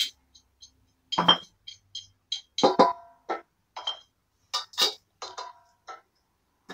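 Metal spoon clinking and scraping against stainless steel cooking pots and bowls: a string of short, irregular clinks and knocks, a few of them ringing briefly.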